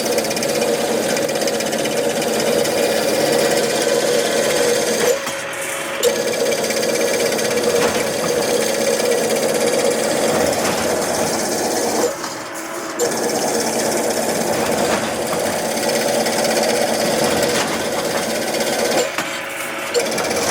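Heavy crimped wire mesh machine running as it crimps wire, a steady rapid mechanical clatter with a strong hum. It drops off briefly three times, about every seven seconds, with a knock as it stops and starts again.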